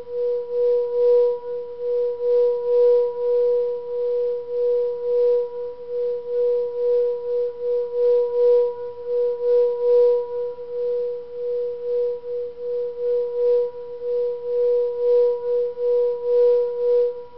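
Singing bowl rubbed around its rim with a striker, singing one steady tone with a fainter overtone an octave above. Its loudness pulses several times a second as the striker circles, with a faint rasp of the striker on the rim at each pass.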